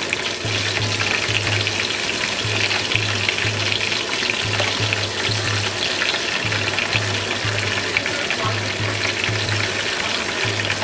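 Chicken wings deep-frying in hot oil: a steady crackling sizzle, with tongs stirring and lifting pieces in the fryer. A low hum pulses on and off underneath.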